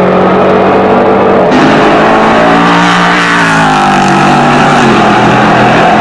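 Endurance racing prototypes' engines running at high revs. Around the middle one car sweeps past, its pitch dropping as it goes by.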